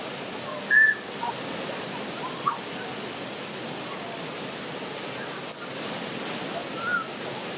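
Waterfall pouring heavily into its pool, a steady rushing hiss. A few brief calls from people stand out: a short high one about a second in is the loudest moment, and smaller ones come near the middle and near the end.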